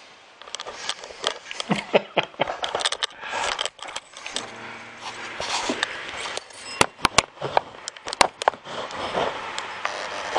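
Close handling noise: irregular rustling, scraping and clattering, with a few sharp clicks about seven to eight seconds in.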